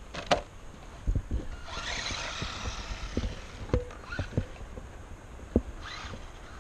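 Footsteps on a dirt trail, a series of uneven soft thumps, with a sharp click near the start and a brief rustling hiss about two seconds in.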